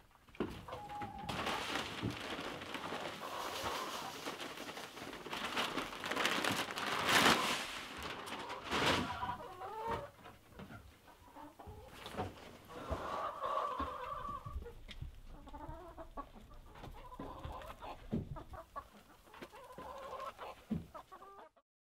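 A flock of chickens in a coop clucking and calling, with loud noisy scuffling in the first several seconds. Pitched calls come again and again through the second half.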